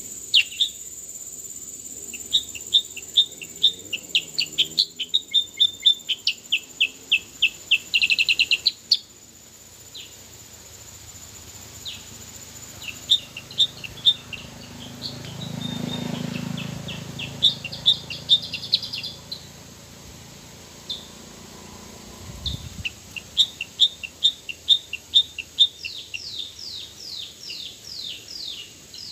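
A caged decoy kutilang sutra bulbul and wild birds calling back and forth in several runs of rapid, high, short chirps. An insect's steady high buzz runs under the first half and stops about halfway.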